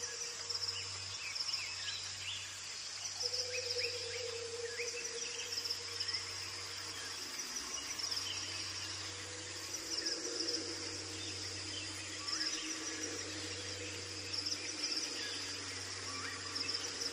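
Rainforest ambience: a steady high insect buzzing and trilling with scattered short bird chirps, over a low steady hum.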